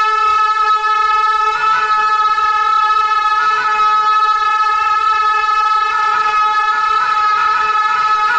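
Several gyaling, Tibetan double-reed oboes, played together in long, loud held notes, changing note about every two seconds.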